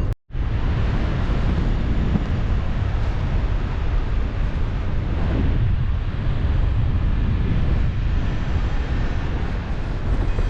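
Steady wind rushing over the microphone in paragliding flight: a loud, even low rumble with hiss above it.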